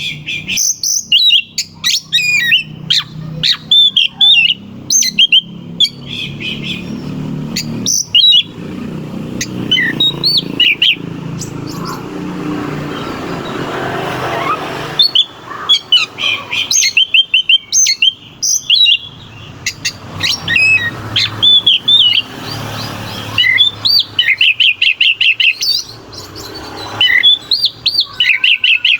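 Oriental magpie-robin in full song: a fast, varied run of sharp whistles, harsh notes and rapid rattling trills, loud throughout except for a pause of a few seconds midway, where a low steady hum comes through.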